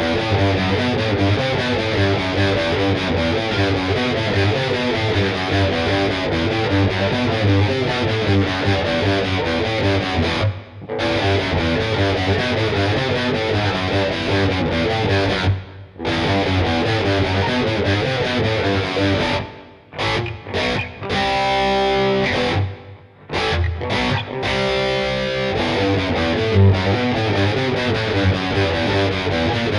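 Schecter C1 Elite electric guitar played through distortion: fast, dense riffing and lead lines, with two brief breaks and a stretch of short stop-start chords past the middle.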